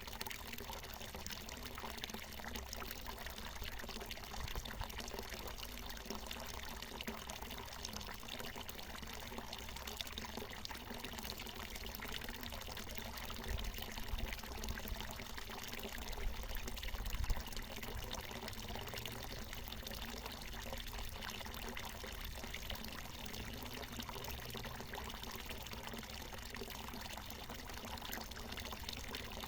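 Water falling and splashing steadily from a natural mountain spring, a continuous pouring trickle. A brief low rumble rises over it about halfway through.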